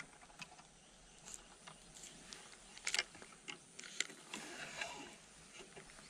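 Faint rustling and scattered light clicks as someone walks through grass carrying a fishing rod, with clothing brushing close to the microphone.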